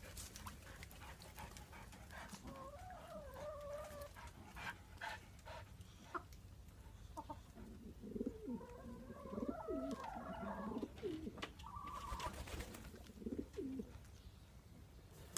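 Wood pigeons cooing faintly, mixed with other bird calls, busiest from about halfway through; a few sharp clicks come before that.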